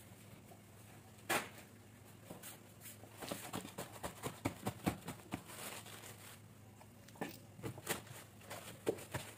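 Paper towels rustling and crinkling in bursts as hands pat and press them onto a raw whole chicken in a plastic bowl to dry it. A single sharp tap about a second in is the loudest sound.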